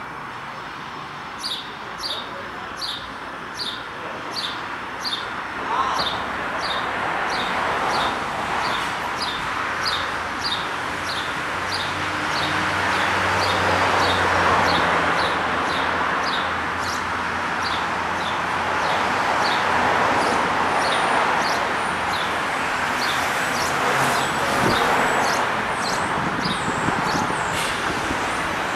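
Road traffic going by, swelling louder through the middle as vehicles pass. Over it a bird chirps steadily, about two short chirps a second.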